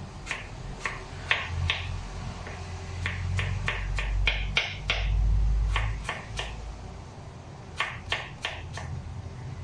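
A small kitchen knife chopping eggplant flesh on a wooden cutting board: sharp taps of the blade on the board in four short runs, about three taps a second. A low rumble sits underneath, loudest about halfway through.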